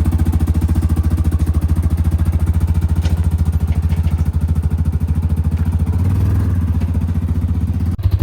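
Side-by-side UTV engine running steadily, with an even, fast low pulse.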